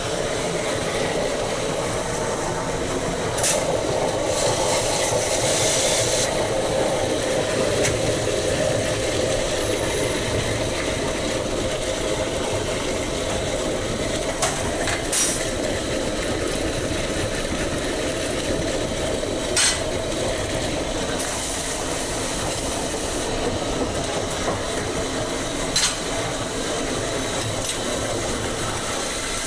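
Steady mechanical drone with hiss from running kitchen equipment, broken by a few sharp clacks.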